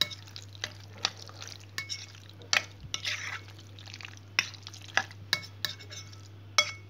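A metal spoon stirring raw sliced liver and its spice marinade in a glass bowl: irregular clinks and short scrapes of the spoon against the glass.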